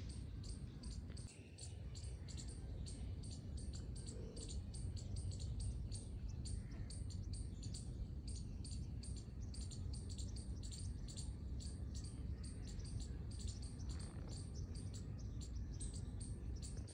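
Open-air ambience: a steady, fast train of high chirps, several a second, over a low rumble.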